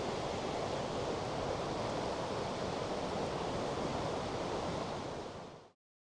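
Steady rush of water from a fast mountain stream, even and unbroken, cutting off abruptly near the end.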